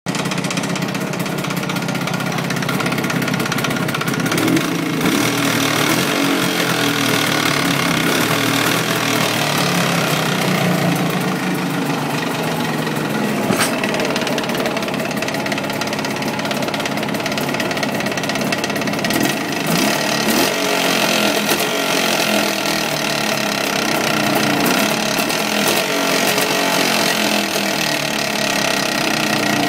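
Jawa 638's 350 cc two-stroke twin engine running hot, with a knock that the owner says comes only once the engine is fully warmed up; he has not found its cause despite new cylinders, rings and small-end bearings. A single sharp click stands out about halfway through.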